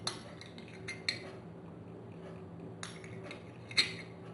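A few light clinks and taps of utensils and dishes being handled, scattered through the few seconds, the loudest near the end.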